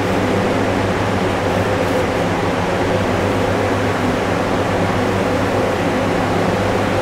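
Steady hum of a running workshop fan: a low, even drone with a constant rush of air over it.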